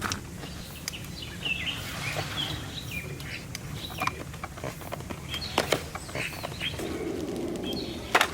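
Small birds chirping in short calls over a low background hum, with a few sharp clicks or knocks, the loudest near the end.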